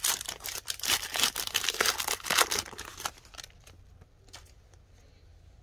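Trading card pack wrapper crinkling and tearing as it is opened, with the cards handled. The crackling dies down about three seconds in, leaving a few faint clicks.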